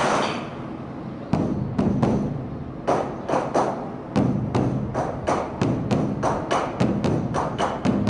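Beopgo, the large Korean Buddhist dharma drum, beaten with sticks in an uneven run of sharp strikes over a deep drum boom. There is a short lull about a second in, and from about three seconds in the strokes come quick and close together.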